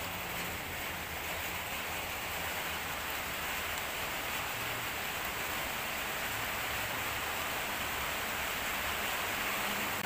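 Steady rain falling, an even hiss at a constant level.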